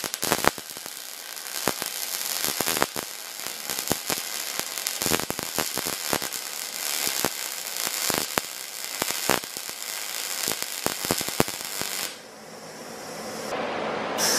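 Vulcan OmniPro 220 wire-feed welder's arc crackling and popping irregularly as a bead is run on steel, stopping about twelve seconds in. The wire speed is set far too low for the voltage (about 121 against 16 volts), which is why the arc keeps popping.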